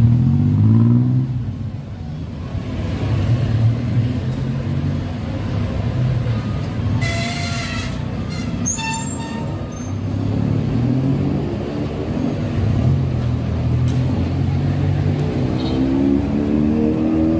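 Busy street traffic: motorbike and car engines passing close by, several rising in pitch as they pull away and accelerate. A short hiss and a few high squeaks come around seven to nine seconds in.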